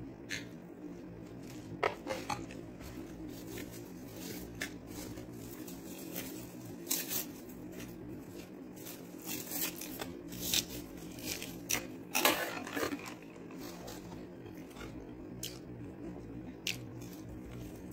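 Close-up eating sounds: chewing a burger and french fries, with scattered clicks, crinkles and scrapes of paper food packaging and fries being picked from their box, over a faint steady hum.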